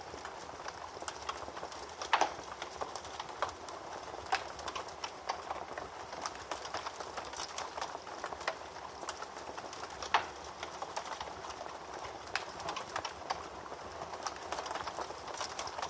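Wood fire burning in a fireplace: a steady hiss with frequent irregular crackles and snaps, and two louder pops, one about two seconds in and one about ten seconds in.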